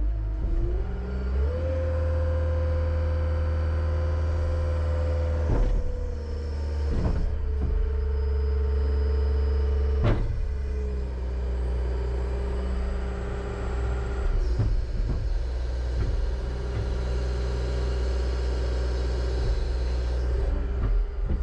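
John Deere 333G compact track loader's 96.6 hp Tier 4 diesel engine running at high revs. The engine note rises about a second and a half in and eases down a little later on, with sharp knocks about six, seven and ten seconds in.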